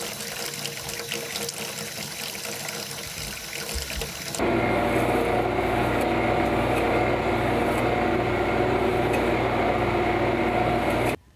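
Water running from a tap and splashing for about four seconds, then a sudden change to a taxidermist's electric fleshing machine running steadily and louder, its motor humming while a skin is worked against the spinning wheel. It cuts off abruptly just before the end.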